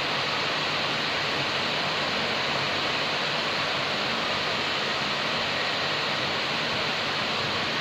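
Heavy rain falling, a loud, steady hiss.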